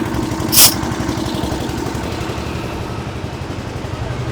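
A small engine running steadily with a low, even pulse. About half a second in comes a short, loud hiss.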